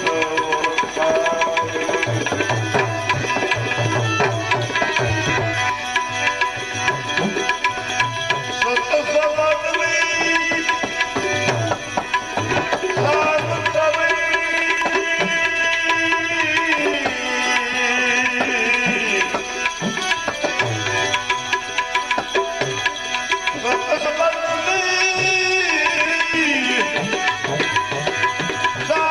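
Tabla playing a steady rhythm under a gliding instrumental melody: the instrumental interlude between sung verses of a bhajan.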